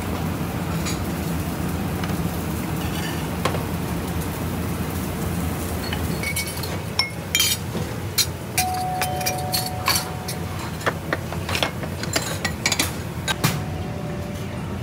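Dishes and metal utensils clinking and clattering in a restaurant kitchen: a quick run of sharp clinks starts about six seconds in, over a steady low kitchen hum.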